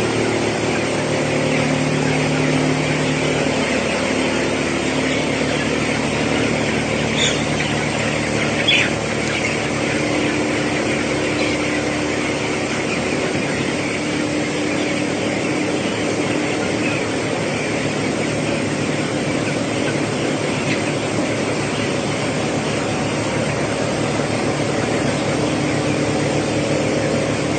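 A dense chorus of many broiler chicks peeping over the steady hum of a control shed's ventilation fans, with a couple of brief sharper calls about a third of the way in.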